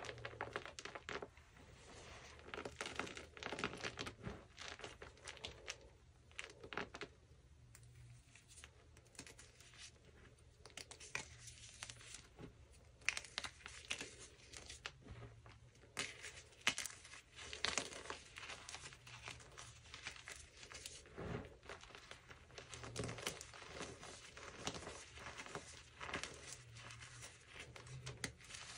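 Hands squeezing and crumbling a pile of Friction Labs gym chalk chunks and powder: quiet, irregular crunching and crackling as the lumps break apart under the fingers.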